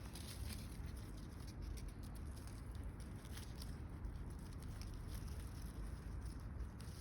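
A rabbit chewing food: a quick, uneven patter of small crunching clicks over a low, steady rumble.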